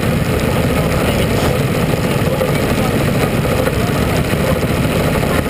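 Mini Sprint race car engines idling, a loud, steady rumble picked up by a camera mounted on the car.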